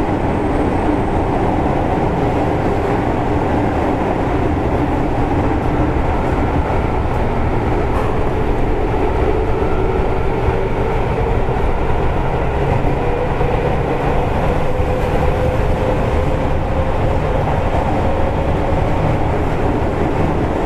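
JR East 205 series electric train running, heard from inside the car near its end: a steady rumble of wheels and running gear, with a traction-motor whine that rises slowly in pitch through the second half.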